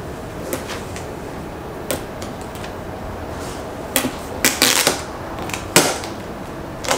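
Hands working at a cardboard box: scattered clicks and taps on the cardboard, then a run of louder scraping rasps from about four seconds in, with a few more near the end.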